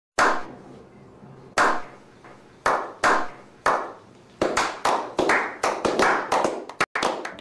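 Slow clap by a small group: single hand claps about a second apart, then more hands join and the clapping quickens to a few claps a second from about four and a half seconds in, each clap with a short echo.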